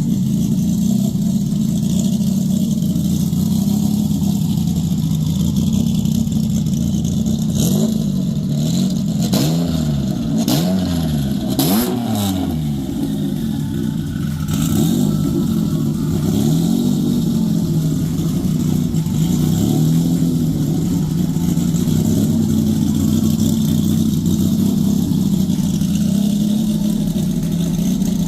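Subaru STI turbocharged flat-four engine, fitted with new bigger-cam P2R heads, running steadily at idle. Several quick revs of the throttle rise and fall a third of the way in.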